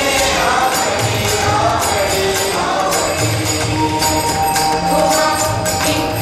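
Marathi dindi bhajan, a devotional song to Vithoba sung by a chorus over a steady beat of drum and jingling percussion.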